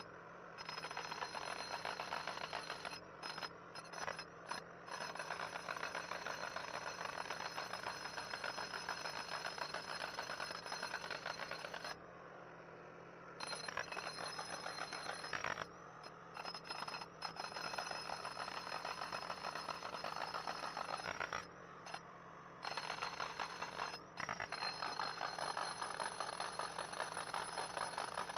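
Electric jackhammer (rock breaker) chiseling into rock in long runs of rapid hammering, stopping briefly several times, the longest pause a bit under halfway through. A portable generator runs steadily underneath, powering it.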